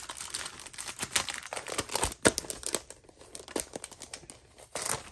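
Packaging crinkling and rustling in irregular crackles as a pack of metal border dies is opened by hand, loudest about two seconds in.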